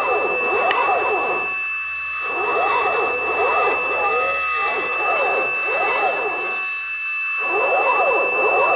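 CNC router cutting a circle in gasket sheet with an upward spiral bit. The spindle holds a steady high whine while the stepper motors whine in pitches that rise and fall over and over as the axes speed up and slow down around the curve.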